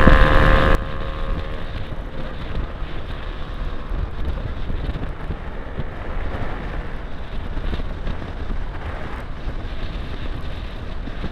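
Automatic scooter being ridden at a steady speed, its engine and tyre noise mixed with wind rumbling on the camera microphone. A louder sound with pitched tones cuts off abruptly under a second in.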